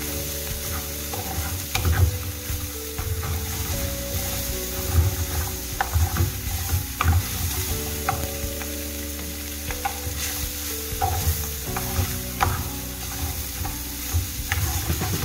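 Wooden spatula stirring food frying in a stainless steel pan: a steady light sizzle with irregular knocks and scrapes of the spatula against the pan.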